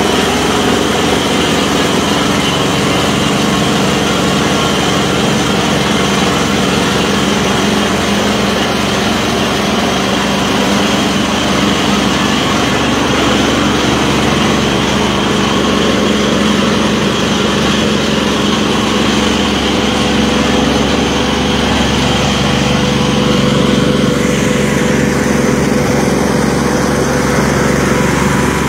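Engine of a truck-mounted water well drilling rig running steadily, a continuous mechanical drone that grows somewhat deeper about two-thirds of the way through.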